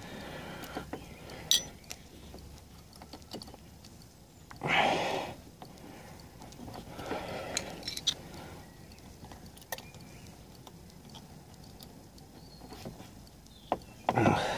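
Scattered small clicks and clinks, with two short rustling bursts about five seconds in and near the end: hands handling small parts.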